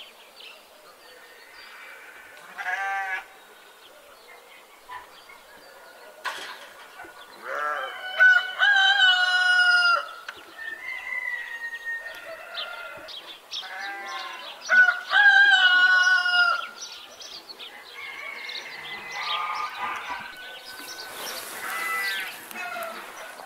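Farmyard animal calls: a rooster crowing, with two long, loud crows near the middle, among clucking hens and livestock bleats.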